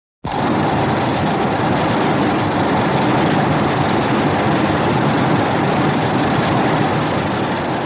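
A Heisei-era Godzilla (1992–1994) movie sound effect: a loud, steady rushing blast with no clear pitch. It starts abruptly and begins to fade near the end.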